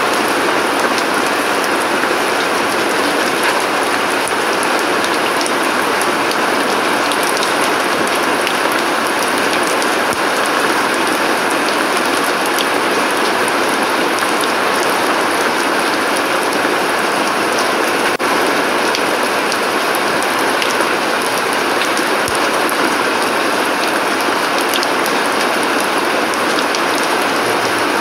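Steady rain falling on a garden's paving, leaves and plant pots: an even hiss dotted with the small taps of single drops.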